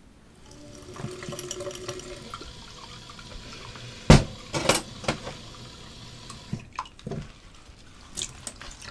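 Kitchen tap running into a stainless steel sink while a bowl is washed by hand, with several sharp clinks and knocks of crockery against the sink, the loudest about four seconds in.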